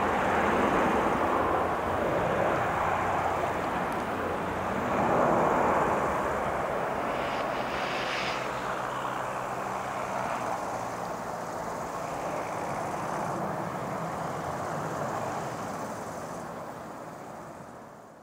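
Boeing 737-300 airliner taking off, its CFM56-3 turbofan engines at takeoff thrust making a loud rushing jet noise that gradually fades as the aircraft climbs away, dying out at the end.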